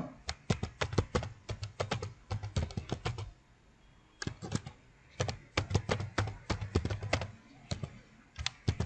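Typing on a computer keyboard: quick runs of key clicks, with a short pause about a third of the way in, as a login ID and then a password are entered.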